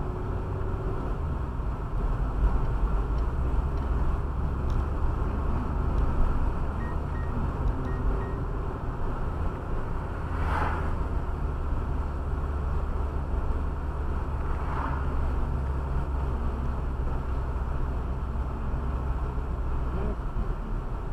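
Steady low road and engine rumble inside a moving car's cabin. About ten seconds in, a brief whoosh as an oncoming car passes, and a weaker whoosh about four seconds later.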